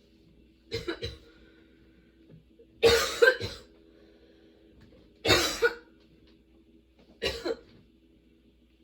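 A young woman coughing through a long, nonstop coughing fit: four bouts of two or three coughs each, about two seconds apart.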